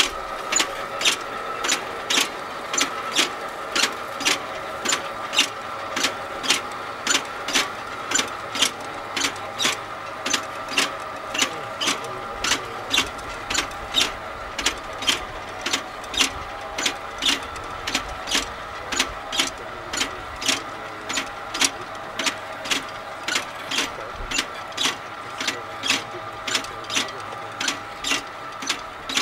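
FarmDroid FD20 electric field robot driving along the crop rows: a steady motor whine with sharp, regular clicks from its mechanism about twice a second.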